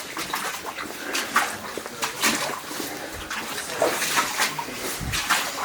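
Wading through thigh-deep water in a flooded mine tunnel: irregular splashes and sloshing as legs push through the water, with no steady rhythm.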